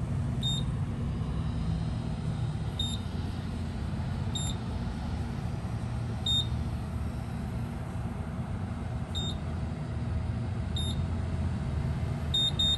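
Gas pump keypad beeping as a ZIP code is keyed in: a short high beep with each key press, one every second or two, then a quick run of beeps starting near the end. A steady low hum runs underneath.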